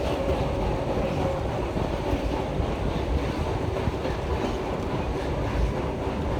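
Passenger train in motion: a steady rumble of wheels running over the rails.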